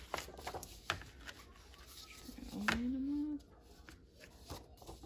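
Loose paper pages rustling and being handled as they are lifted out of a ring binder, with several sharp clicks and taps. About two and a half seconds in comes a short rising hum lasting under a second, the loudest sound here.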